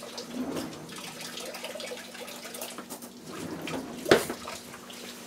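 Butter sizzling and crackling in a hot cast iron pan on a gas burner, with one sharp knock about four seconds in.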